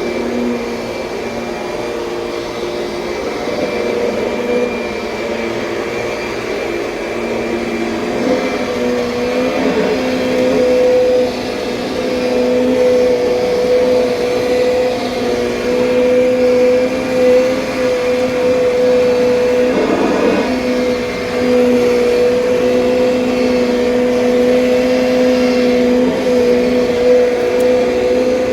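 Kirby Sentria upright vacuum cleaner running, its motor giving a continuous whine that wavers slightly in pitch and level.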